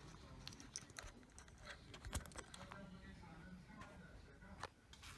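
Faint, scattered small clicks and taps, like light handling of small plastic parts, over a low background murmur.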